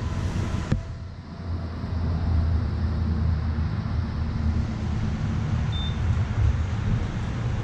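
A single short, high beep from a gas pump's keypad about six seconds in, over a steady low rumble. There is a sharp click just under a second in.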